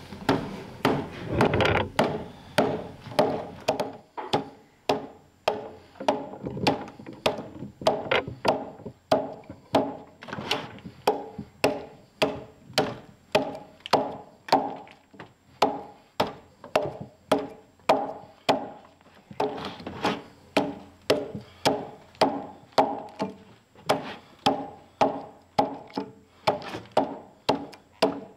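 Hand axe chopping into a round log, cutting out a corner notch, with steady, evenly spaced strokes about two a second, each a sharp knock with a short ring.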